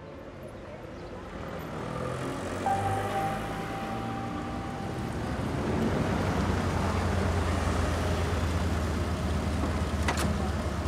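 A car comes up close along a narrow street, growing louder, then its engine idles with a steady low hum. There is a sharp click near the end.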